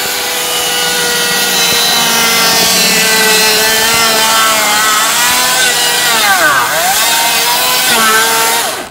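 Ryobi electric chainsaw cutting through a wooden board: a loud, steady motor whine that dips sharply in pitch about six and a half seconds in, picks back up, and cuts off suddenly near the end.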